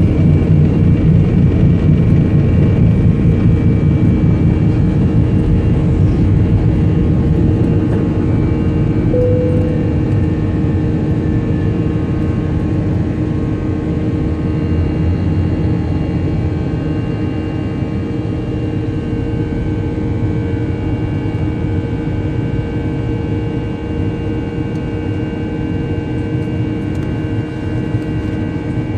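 Jet airliner cabin noise during the takeoff roll and initial climb: engines running at takeoff thrust, with a steady whine of several tones over a heavy low rumble. The rumble is strongest in the first few seconds and eases gradually as the plane climbs.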